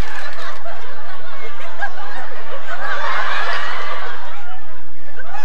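Live audience laughing, many voices at once, the laughter swelling about three seconds in and then easing off.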